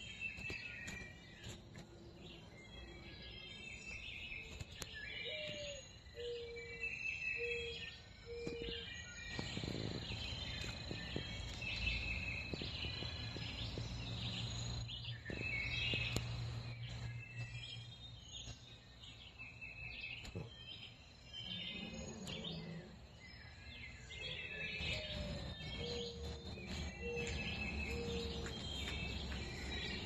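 Backyard birds chirping and calling over a steady outdoor background, with a low call of one rising note followed by several even hoots heard twice. A low steady hum joins in through the middle stretch.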